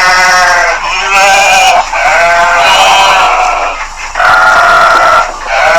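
Livestock bleating: about five loud, wavering bleats in quick succession with short breaks between them.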